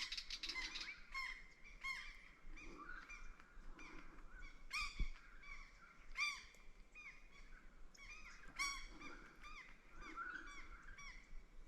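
Wild birds calling in the bush: many short, repeated calls overlapping one another, the loudest about 5, 6 and 9 seconds in.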